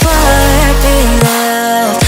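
Background pop music with sustained synth chords, a sliding melody line and a heavy bass.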